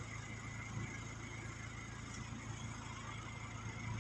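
Steady low hum of an idling engine, with a steady higher-pitched drone above it.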